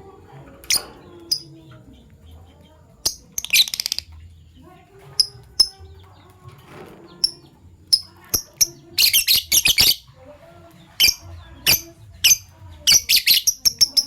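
Fischer's lovebirds chirping: short, sharp, high-pitched chirps scattered throughout, broken by three bursts of rapid chattering about three and a half, nine and thirteen seconds in.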